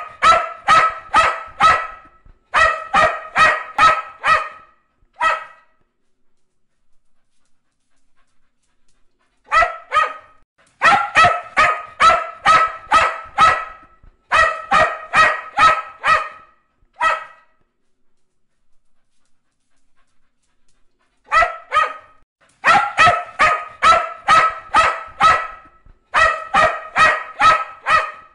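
A dog barking in quick runs of about three barks a second, grouped in clusters with silent pauses of a few seconds between them. The same sequence of barks repeats three times.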